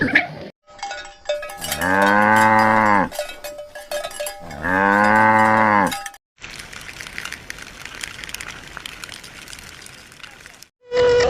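A cow mooing twice: two long, low moos of about a second and a half each, a little over a second apart. A quieter stretch of steady noise follows.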